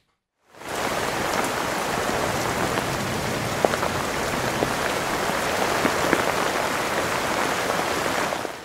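Steady rain: a dense, even patter with a few single drop ticks standing out. It fades in about half a second in and fades out near the end.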